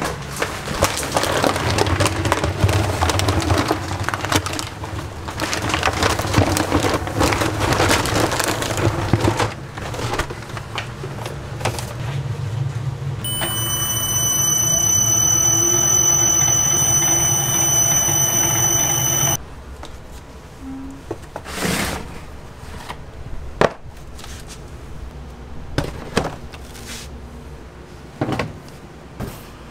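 Flour poured from a paper sack into a large stainless-steel mixing kettle: a loud rustling hiss for about ten seconds. Then the mixer's electric motor runs with a steady whine for about six seconds and cuts off abruptly. This is followed by a few light knocks as milk cartons are set down on a stainless-steel table.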